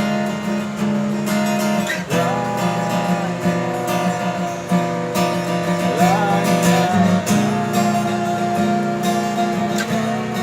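Acoustic guitar strumming chords, with a higher held melody line above it that slides in pitch about two seconds in and again about six seconds in.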